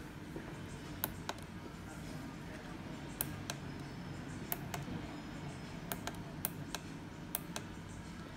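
Keypad buttons on a ZKTeco SC103 card-reader terminal being pressed one after another, a short sharp click with each press, about a dozen in all and often in quick pairs.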